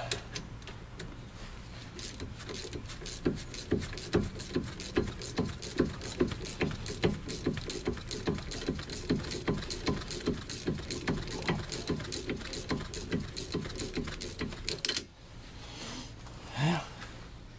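Wrench worked rapidly back and forth on a seized front brake caliper slider pin, a rhythmic clicking about two or three strokes a second that stops suddenly about fifteen seconds in. The pin is stiff from corrosion and is being worked loose.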